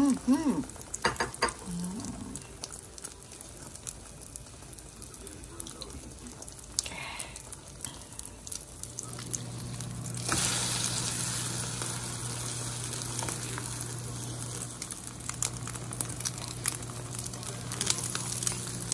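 Corned beef omelette frying in a pan, a steady sizzle that turns louder about ten seconds in. A steady low hum comes in just before that.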